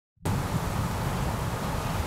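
A steady rushing noise with a strong low rumble, starting abruptly about a quarter second in.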